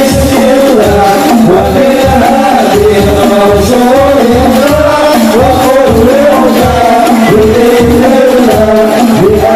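Hadroh ensemble performing a sholawat: men's voices singing a wavering melody into microphones over frame drums, with deep drum strokes keeping a steady beat of about two to three a second.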